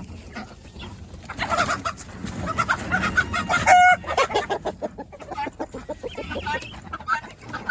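A flock of chickens clucking and calling over one another, with one short clear call a little under four seconds in.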